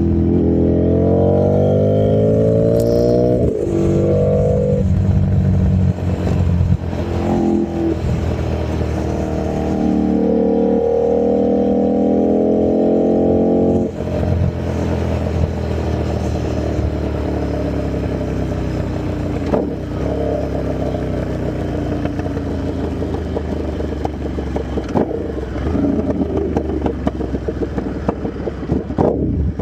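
2009 Buell 1125R's V-twin through a custom muffler with no dB killer fitted, ridden hard: the pitch climbs through several gear changes, holds at high revs, then falls away as the throttle is rolled off about halfway through. Very loud.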